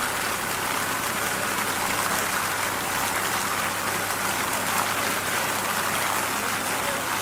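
Steady rushing hiss, even in level, with a low steady hum underneath.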